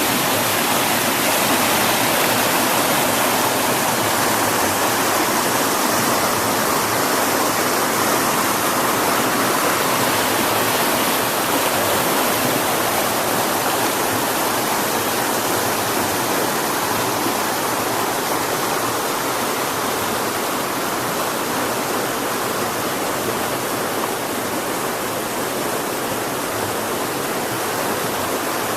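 Stream water rushing and splashing in a steady, continuous noise.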